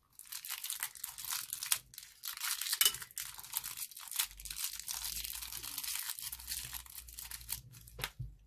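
Thin plastic piping bag crinkling as it is squeezed and worked in the fingers to pipe dots onto gel beads, a dense dry crackle that stops shortly before a single sharp click near the end.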